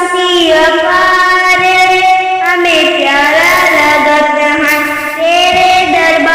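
A high solo voice singing a Hindi Christian devotional song (masihi geet) in long, held notes that glide up and down in pitch.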